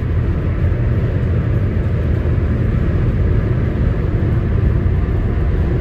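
Steady road and engine noise of a car cruising at highway speed, heard from inside the cabin: an even low rumble with no change.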